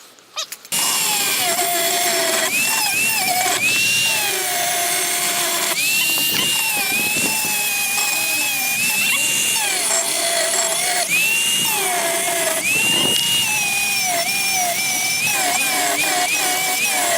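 Power drill running in long runs, its motor whine rising and falling in pitch as the trigger is eased and squeezed. It starts abruptly under a second in, after a few light clicks.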